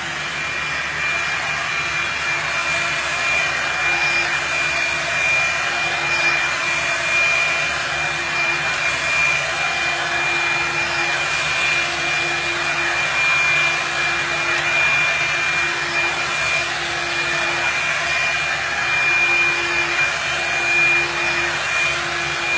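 Revlon blow dryer brush running steadily: a constant rush of blown air with a thin high whine from its motor.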